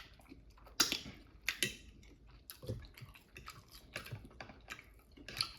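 Close-miked chewing and mouth sounds: irregular wet clicks and smacks, a few louder ones about a second and a second and a half in.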